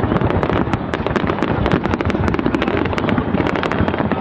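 Fireworks display: a dense, unbroken barrage of rapid bangs and crackles, many each second, heard through a phone's microphone.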